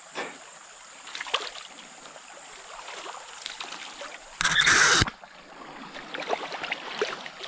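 Small creek trickling and gurgling over rocks, with small splashes. A little past halfway comes a brief loud rush of noise lasting under a second.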